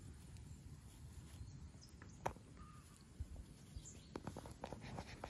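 Faint rustling and small clicks from a dachshund puppy nosing and mouthing through grass, with one sharper click a little after two seconds and a quick run of small ticks near the end, over a low wind rumble on the microphone.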